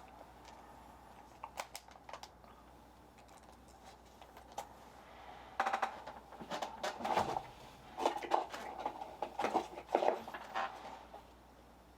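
Trading cards handled by hand: scattered small clicks, then from about halfway a busier run of card and plastic sliding, scraping and clicking as cards are shuffled through.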